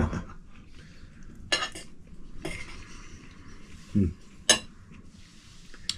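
Cutlery clinking and scraping on dishes, with sharp clicks about one and a half, two and a half and four and a half seconds in.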